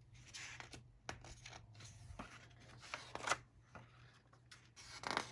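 Paper pages of a planner being handled and turned: faint, irregular rustles and small clicks.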